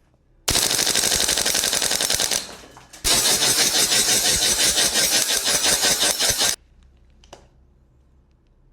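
Gas blowback airsoft HK416D rifle firing on full auto in two long bursts of rapid shots, the first about two seconds long and the second about three and a half. A single faint click follows near the end.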